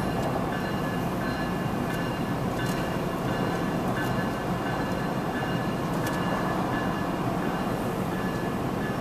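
Two GE ES44AC diesel-electric locomotives running light through a grade crossing: a steady rumble of the V12 diesel engines and wheels on the rails.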